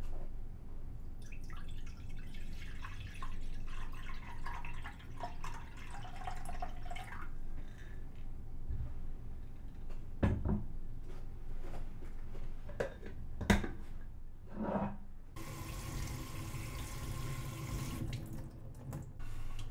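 Dashi poured from a glass pitcher into a stainless steel saucepan, a splashing pour lasting about six seconds. A few sharp knocks follow as things are set down. Near the end a kitchen tap runs onto a wooden cutting board for about three seconds, then stops.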